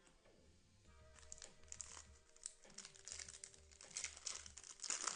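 Trading card pack wrapper crinkling and tearing as it is opened, the crackle starting about a second in and getting louder toward the end. Background music with a steady low beat underneath.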